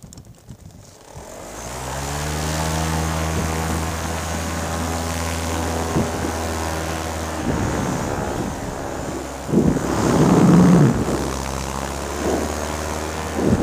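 Paramotor's two-stroke Simonini engine and propeller starting about a second in, spinning up, then running steadily. A louder rushing noise rises over it around ten seconds in.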